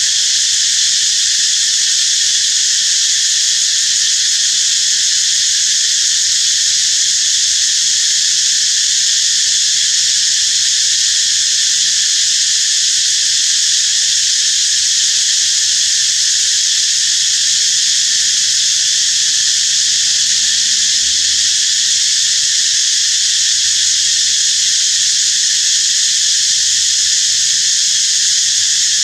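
Loud, steady, high-pitched drone of a forest insect chorus, unbroken throughout.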